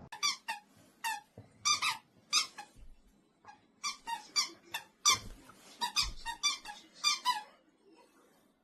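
Squeaker in a plush squirrel dog toy being squeezed over and over: a quick, irregular run of about twenty short, high squeaks that stops near the end.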